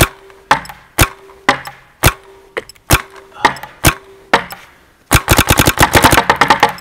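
Planet Eclipse Ego electronic paintball marker firing sharp single shots about two a second, with a steady hum beneath them. About five seconds in comes a fast string of shots in rapid fire.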